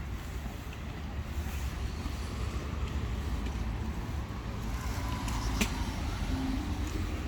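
Steady low rumble of street traffic, with one sharp click about five and a half seconds in.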